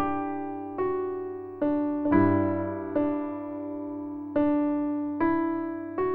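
Background music: slow solo piano, one note or chord struck about every second and left to fade.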